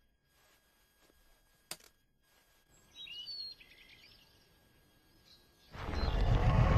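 Cartoon soundtrack: a single sharp click, then a brief burst of birdsong chirps over quiet outdoor ambience. Near the end, loud music with a deep rumble swells in.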